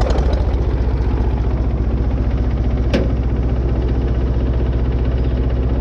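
Farm tractor engine running at a steady idle, an even low pulsing, with one sharp click about halfway through.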